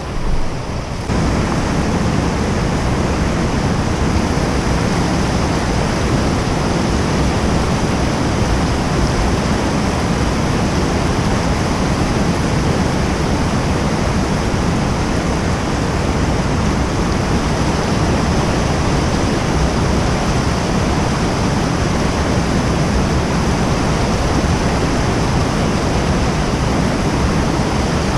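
Fast stream current rushing, loud and steady, stepping up a little about a second in.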